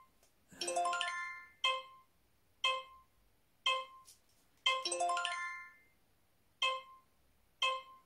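Electronic sounds from a charades app on a phone: short beeps about once a second, counting down the round's final seconds, with two longer multi-note chimes about one second and five seconds in.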